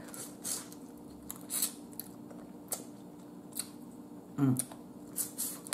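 Close-up mouth sounds of someone eating steamed blue crab: chewing and wet lip-smacking, short sharp clicks about once a second, with a brief hum a little past the middle.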